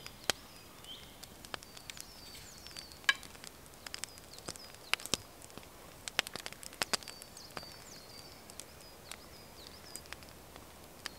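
Scattered light clicks and taps of a fork against a pan as a man eats from it. Faint high bird chirps come in the background from about two seconds in.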